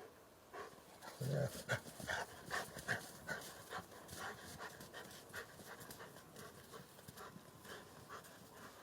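A dog panting, a run of short, quick breaths.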